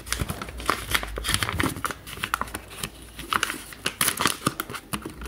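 Brown kraft packing paper crinkling and rustling as it is carefully unfolded from around a wrapped book, with many small irregular crackles.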